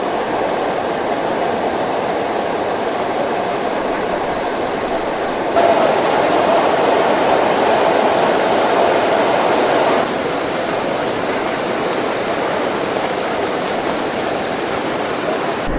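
Muddy floodwater pouring down a slope and rushing across a road: a steady rush of water that gets louder for about four seconds in the middle, then drops back.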